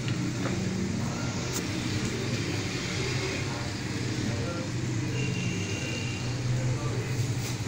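Chicken pieces frying in hot oil in a karahi, the oil sizzling steadily as pieces are lifted out with a spoon, with a couple of light clicks of the spoon against the pan. A steady low hum runs underneath.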